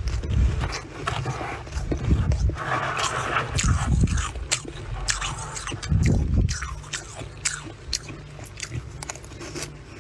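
Close-up biting and chewing of freezer frost: repeated crunchy, squeaky crackles over dull chewing thuds, several bites in a row.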